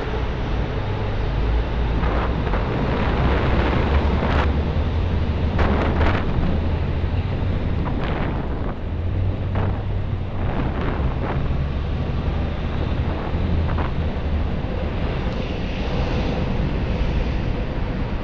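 Wind rushing over the microphone of a camera on a moving bicycle, over the steady rumble of traffic on the bridge. A few short clatters come through now and then.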